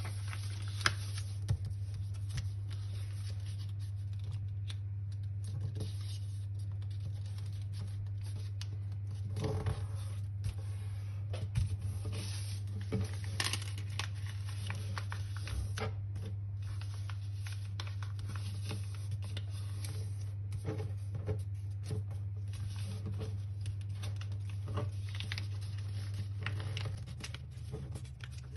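A sheet of paper being folded and creased by hand: rustling, crinkling and sharp little crease clicks, busiest midway, over a steady low hum.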